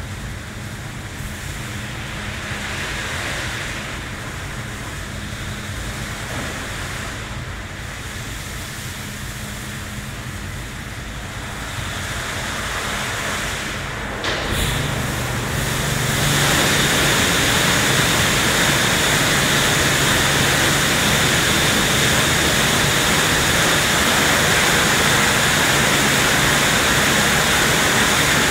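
WashTec SoftCare2 Pro rollover car wash running: a steady machine hum under the swish of its spinning foamed-polyethylene brushes and water spray. About halfway through, the sound turns suddenly louder and hissier as more water sprays onto the car.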